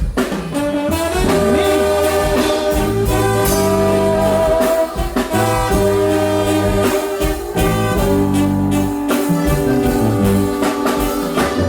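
Live Mexican brass band led by tuba playing an instrumental passage: held brass chords over low tuba bass notes, with a steady drum beat.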